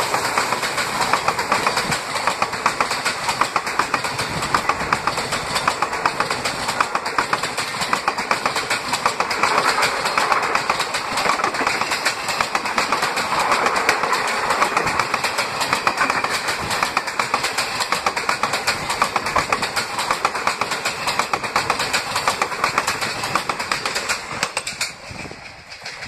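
Passenger coaches of an express train passing close by at speed, their wheels clattering steadily over the rail joints. The noise drops away about a second and a half before the end as the last coach goes by.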